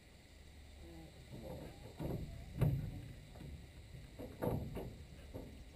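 A few irregular knocks and clicks, the loudest about two and a half seconds in, over a faint low rumble of wind on the microphone.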